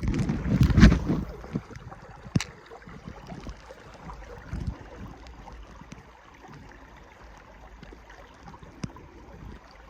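Water sloshing and splashing around a wader's legs, loudest in the first second, then a faint steady stream with a sharp click about two seconds in.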